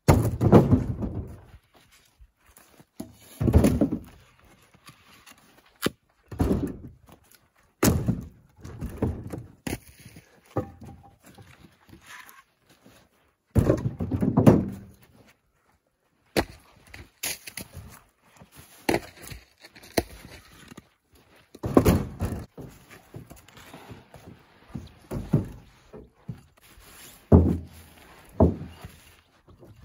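Split firewood blocks tossed one after another into a pickup truck bed and stacked, landing against the bed and the other blocks in an irregular series of sharp knocks, one every second or two, with a short break about halfway.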